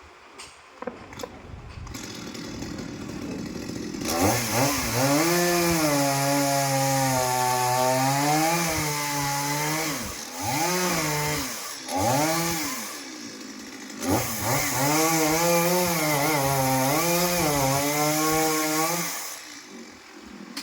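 Chainsaw engine revved high and held at a wavering pitch as it cuts. It drops off briefly twice near the middle and revs back up, then winds down near the end.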